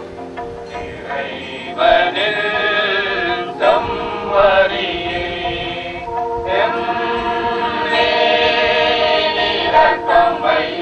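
A choir singing a slow, chant-like liturgical hymn in long held notes that change every second or two.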